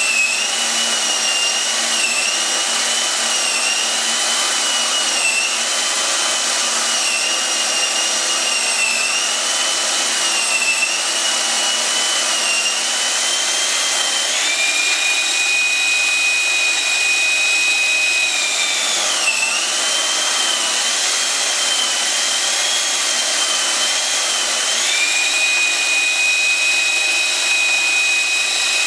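Electric drill motor running with a continuous high whine whose pitch wavers up and down; twice, about halfway through and again near the end, it rises to a higher, steadier pitch and holds for a few seconds before dropping back.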